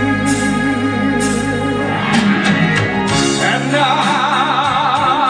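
A male vocalist singing with instrumental accompaniment, holding long notes with vibrato; about two-thirds of the way through he goes up to a high held note.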